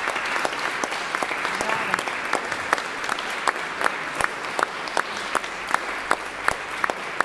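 Audience applauding with steady, dense clapping after a poem reading ends.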